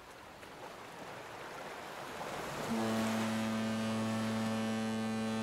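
Surf washing and slowly swelling, then a deep ship's horn sounds about two and a half seconds in and holds one steady note; it is a stock boat-horn sound effect.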